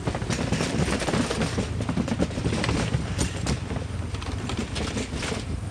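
A motorcycle rolls slowly across a narrow suspension footbridge. The bridge deck rattles and clatters irregularly under the wheels over the low, steady running of the engine. The clatter stops near the end.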